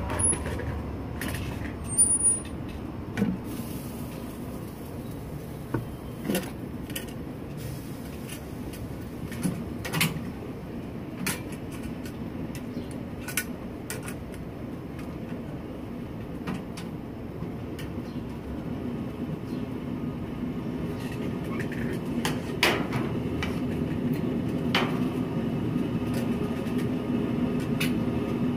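Steady low rumble of road traffic that grows louder toward the end, with scattered sharp clicks and knocks on top.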